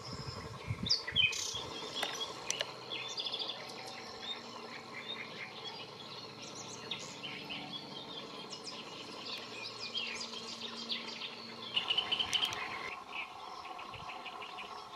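Songbirds singing: a busy, continuous chorus of short chirping and chattering phrases, loudest about a second in and again near the end.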